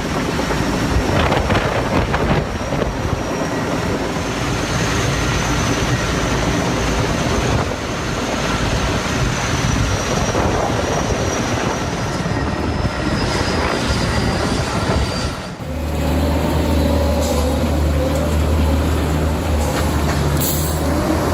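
Heavy machinery running: dense mechanical noise with a high squealing whine, then a sudden change about fifteen seconds in to a deep, steady engine drone.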